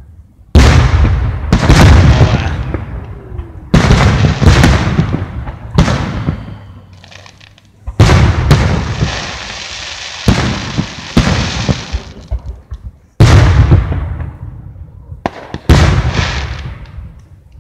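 Aerial firework shells bursting overhead: about ten sharp booms in irregular succession, each trailing off over a second or two. A stretch of crackling runs under the bursts near the middle.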